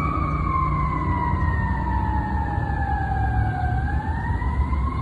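Fire ladder truck's siren sounding a slow wail, the tone sliding down for about four seconds and then climbing again, over the low rumble of the truck's engine as it drives past.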